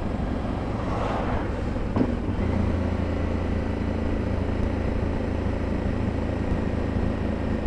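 KTM 990 V-twin motorcycle engine running steadily under heavy wind rumble on the helmet-mounted camera. A passing car swells briefly about a second in.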